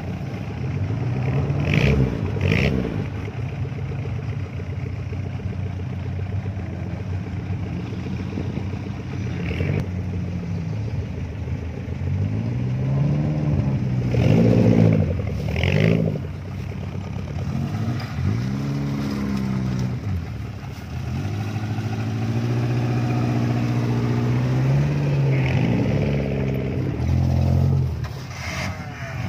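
Suzuki Jimny 4x4's engine revving up and down repeatedly as it crawls through thick brush, with a few brief sharp noises over it.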